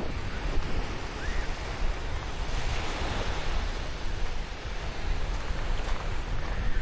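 Black Sea surf washing onto a sandy beach, with a swell of breaking-wave hiss about three seconds in, and wind rumbling on the microphone underneath.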